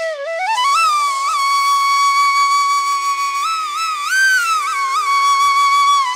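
Background music: a flute-like melody in an Indian classical style over a steady drone. It slides up into a long held note, turns through a few quick ornaments, then falls away near the end.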